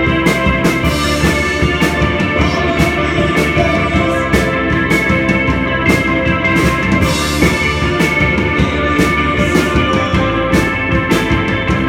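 Live band music: a drum kit keeping a steady beat under sustained chords.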